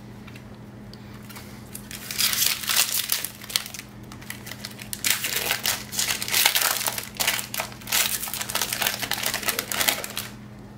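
Foil Magic: The Gathering booster pack wrapper crinkling as it is torn open, in a short spell of crackling about two seconds in and a longer one from about five seconds to near the end.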